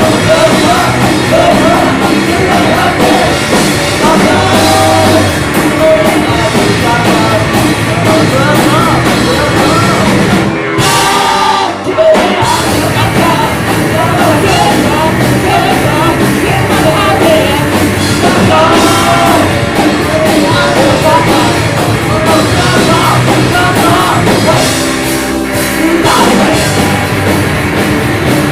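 Rock band playing live with a singer. A little over ten seconds in, the band drops out for about a second, leaving one held note, then comes back in.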